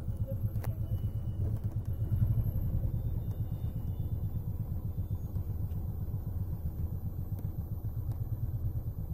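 Steady low rumble of a road vehicle's engine and tyres, heard from inside its cabin.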